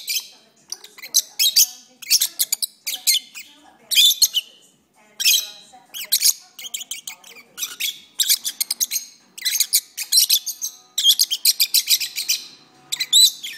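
Pet lovebirds singing: burst after burst of rapid, shrill chirping and chattering, each burst a fraction of a second to about a second long, with short pauses between.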